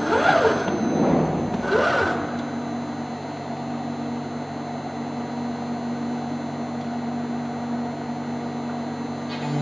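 CNC milling machine running while cutting holes in an aluminium profile: a steady spindle hum, with two short whines falling and rising in pitch in the first two seconds as the machine moves, then a quieter steady hum.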